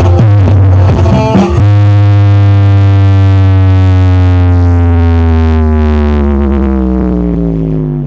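Very loud electronic music over a large carnival sound system. After a short stretch of busy beat, one long bass-heavy synthesizer tone holds and slowly glides down in pitch.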